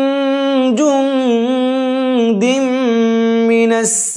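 Melodic Qur'an recitation in a slow tajweed style: a single reciter's voice holds long drawn-out vowels, turning the pitch in ornamented steps. Near the end there is a quick, hissy intake of breath before the next phrase starts.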